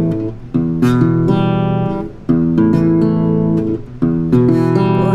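Acoustic guitar strumming chords that change every second or two, with brief dips between strums.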